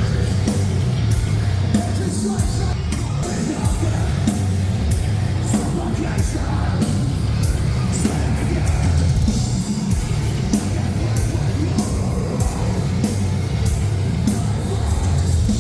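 Metalcore band playing live at full volume: heavy low-end guitars and bass under drums with steady, regular cymbal crashes, and shouted vocals over the top.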